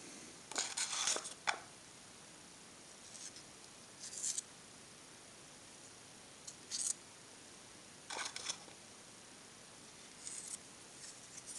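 Brief scraping and scratching sounds, about seven in all, the busiest just after the start: a thin metal blade scraping flux paste around a plastic cup and against the end of a thin-wall stainless steel tube.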